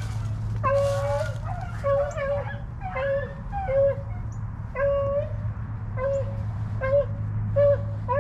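A pack of rabbit hounds baying on a rabbit's trail, with several dogs giving short, repeated, high-pitched calls that overlap one another. A steady low hum runs underneath.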